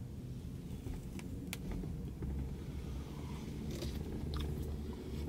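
Soft lip smacks and pops of a man puffing on a cigar, a few scattered clicks, over a low steady rumble inside a car.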